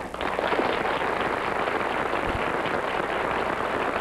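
Studio audience applauding, a steady even clapping that starts right away and holds without a break.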